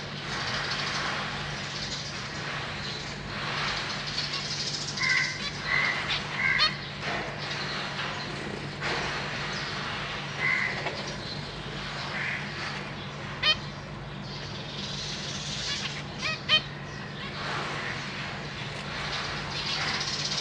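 Zebra finches calling in a cage: a quick run of short calls about five seconds in and another near the middle, over a steady low hum, with a few sharp ticks later on.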